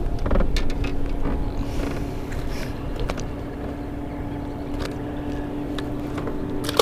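A motor running steadily with a constant hum, with a few light clicks and knocks on top.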